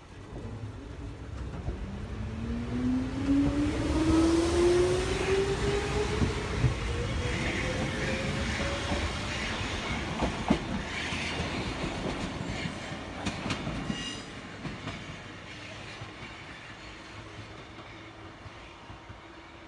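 Wakayama Electric Railway 'Umeboshi Densha' electric train pulling away from a station: a whine rises steadily in pitch as it accelerates, over a rumble with a few sharp clicks of the wheels on the rail joints. The noise fades after about fourteen seconds as the train moves off.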